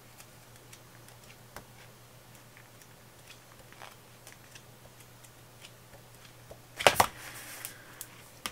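Pages of a paper sticker book being handled and flipped: scattered light paper ticks and clicks, with a louder rustle of a page turning about seven seconds in.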